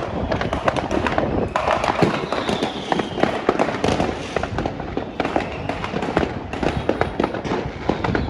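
Fireworks going off close by in a dense, continuous barrage of overlapping cracks and bangs, with a faint falling whistle about two to three seconds in.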